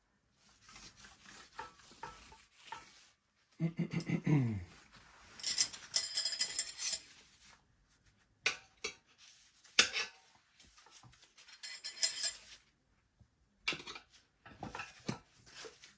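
Steel tire irons clinking and scraping against a dirt bike wheel rim while a paddle tire's bead is levered onto the rim. There are irregular sharp clicks, a short falling squeak about four seconds in, and a longer bright scrape near the middle.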